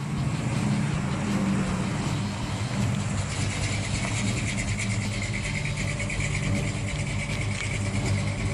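Engine of a classic Dodge Charger muscle car running steadily as the car drives past and pulls away.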